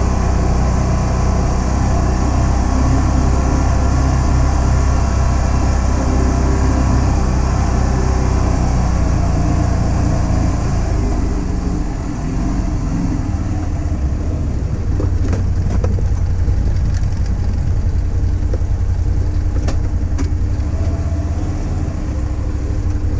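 Can-Am Defender HD10 side-by-side's V-twin engine running while driving on a trail. It eases off briefly about halfway through, then picks up again, with a few short knocks later on.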